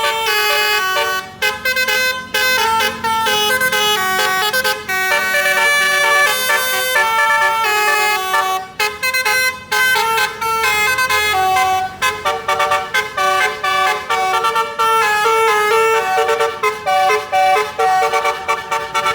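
Basuri-type 'telolet' multi-tone bus horn playing a melody, stepping from note to note with brief breaks between phrases, then sounding quick short toots near the end.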